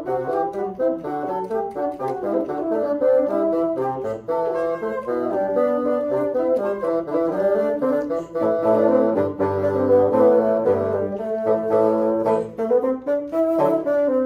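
Quartet of four bassoons playing a piece in close harmony, with moving melodic lines over held lower notes. A low bass line comes in more strongly a little past halfway.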